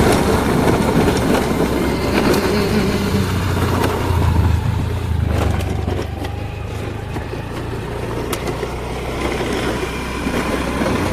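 Motor vehicle running at a steady pace, a low engine hum with road noise.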